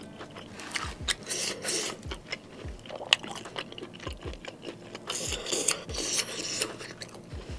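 A person chewing a mouthful of steak and saucy noodles: wet smacking and squelching with many small clicks, and one sharper click about three seconds in.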